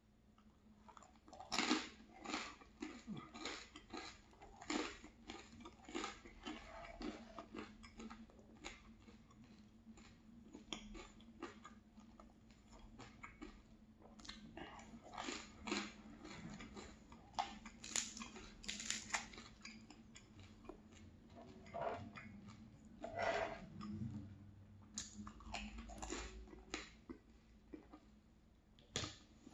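Close-miked chewing of linguine in tomato sauce and of sauce-dipped crusty baguette: irregular wet mouth sounds with sharp crackling crunches.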